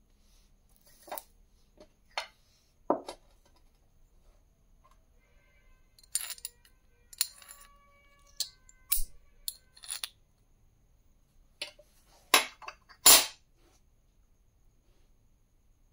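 Scattered knocks and clinks of a glass tumbler and a copper coin being handled and set down on a marble tabletop, the loudest two knocks close together near the end.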